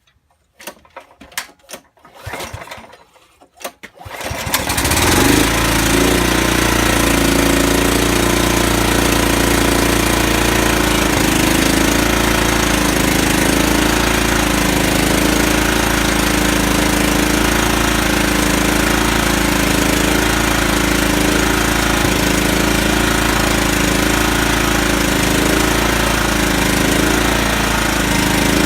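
Kohler Command CV14 14 hp single-cylinder engine being cranked for about four seconds, then catching and running steadily, on its freshly rebuilt Walbro carburettor.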